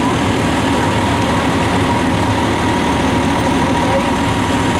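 Fire engine's diesel engine running steadily, with a thin steady whine above it.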